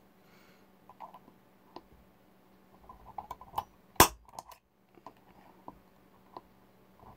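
Small metallic clicks and rattles as a steel L bracket and center punch are positioned on a lawnmower wheel rim, then one sharp snap about four seconds in: a spring-loaded automatic center punch firing to mark a hole for drilling.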